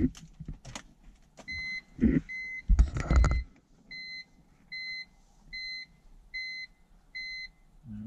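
A BMW E46 M3's interior warning chime beeping repeatedly, short even beeps a little under a second apart, stopping just before the end. About two and three seconds in come a couple of loud, dull thumps.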